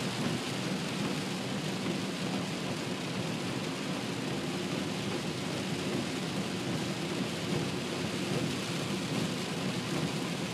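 Torrential rain falling hard on a car's roof and windshield, heard from inside the cabin as a steady, dense hiss.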